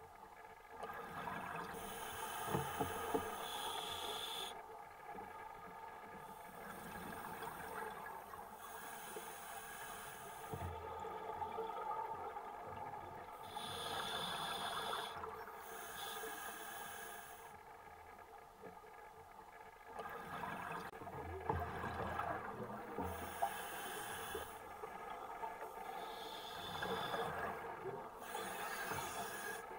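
A scuba diver breathing through a regulator underwater: a hissing inhalation followed by a bubbly exhalation, repeating about every six seconds, five or so breaths in all.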